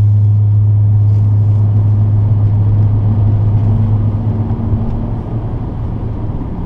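Car cabin noise while driving: a steady low engine drone with road and tyre rumble, easing slightly about two-thirds of the way through.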